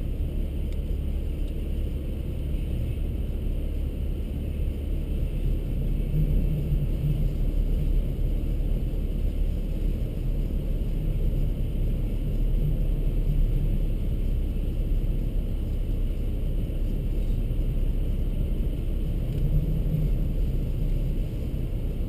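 Strong wind buffeting a car, heard inside the cabin as a steady low rumble.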